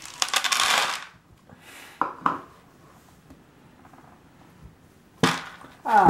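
Dry cat food rattling into a plastic food container for about a second, followed by a couple of light clicks. A sharp knock comes near the end, then a short call that falls in pitch.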